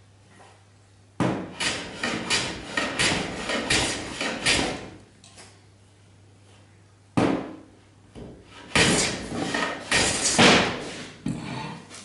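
Hand plane working wood in two runs of quick strokes, knocks and scrapes, each run a few seconds long; the second run starts about seven seconds in.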